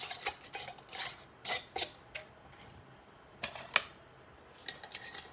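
Metal canning rings being screwed onto glass mason jars fingertip tight: a scattered series of short clinks and scrapes of metal on glass, the loudest about a second and a half in.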